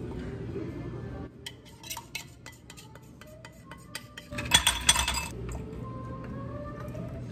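Dishes, glassware and cutlery being handled: a run of sharp clinks, with a louder rushing noise about four and a half seconds in that lasts about a second.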